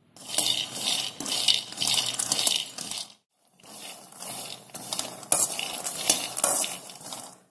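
Raw groundnuts being stirred with a spatula while they dry-roast in a pan, the nuts rattling and scraping against the metal. The sound comes in two stretches with a short break about three seconds in.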